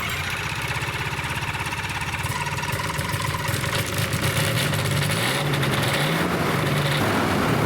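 Rotax 582 two-stroke twin aircraft engine fires up and runs on both magneto ignitions on its first start with a new stator. Its pitch rises and dips a few times around the middle, then settles steady.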